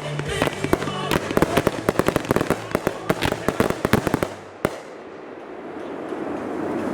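Fireworks finale barrage: a dense, rapid string of cracks and bangs that stops suddenly about four seconds in, then one last single bang. A steady hiss follows.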